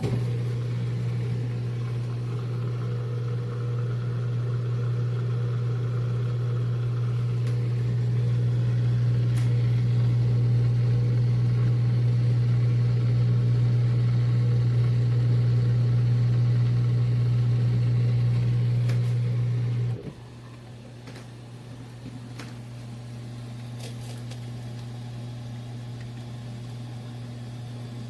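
AIRMSEN mini countertop dishwasher running, its pump giving a loud steady hum that drops abruptly to a much quieter hum about twenty seconds in.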